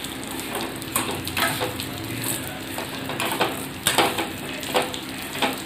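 Vermicelli frying in ghee in a steel pan, a metal ladle stirring it and scraping the pan several times.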